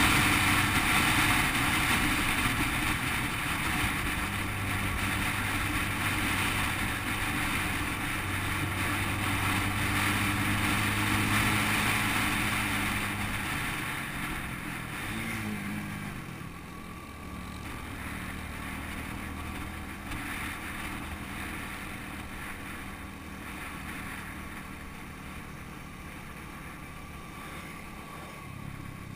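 Small-displacement motorcycle engine running steadily at road speed, with wind rushing over the mounted camera. About halfway through, the engine note shifts and drops as the bike slows, and the wind noise eases.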